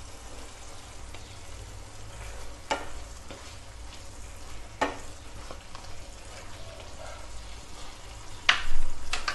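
Thick chicken curry sizzling gently in a pan while a spoon stirs it, with a few sharp knocks and scrapes of the spoon against the pan, the loudest about a second before the end.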